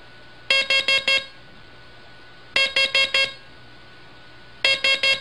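Morse code tone sending three groups of four short dits, about two seconds apart: the letter H each time. The tone is buzzy, and a faint steady hiss runs under and between the groups.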